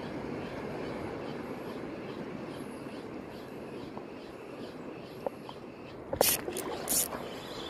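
Steady outdoor wind and water noise while a small Ryobi HPX 1000 spinning reel is cranked to retrieve a lure. About six seconds in come a few sudden, loud, short hissing bursts.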